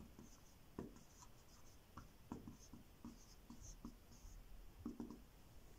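Faint squeaking and tapping of a felt-tip marker writing on a whiteboard, with small ticks as each stroke starts and short high squeaks as the tip drags.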